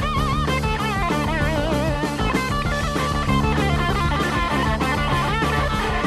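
Hard rock band playing live: an electric lead guitar with wide vibrato and bent notes over bass and drums.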